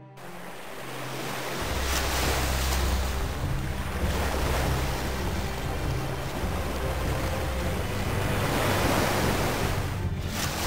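Waves and wind on open water, a steady rushing noise that swells in over the first two seconds, with a low rumble joining about a second and a half in.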